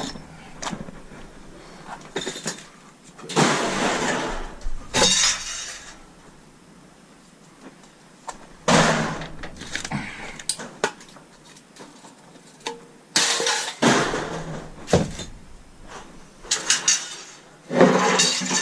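Scrap metal clattering and crashing as pieces are thrown down onto a scrap pile: about six loud crashes spread over the stretch, with lighter clinks in between.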